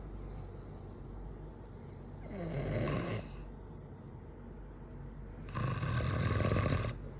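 A man snoring in his sleep: two loud snores about three seconds apart, each lasting about a second, with softer breathing between them.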